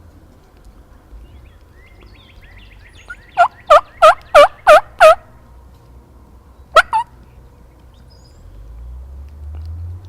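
Turkey yelping: a run of six loud, evenly spaced yelps, each dipping and rising in pitch, then a quick two-note yelp about two seconds later.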